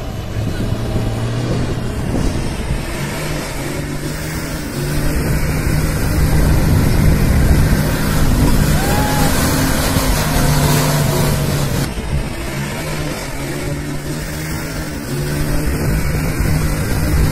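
Diesel tipper truck engine labouring under load as it drives through a shallow river, its pitch stepping up and down with the throttle, with water and wet sand churning around the wheels, loudest in the middle.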